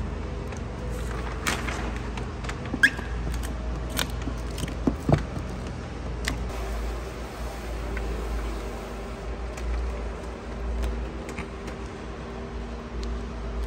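Wet clear paint protection film being stretched by hand and pressed down with a plastic squeegee: scattered crinkles and clicks of the plastic sheet over a steady low hum.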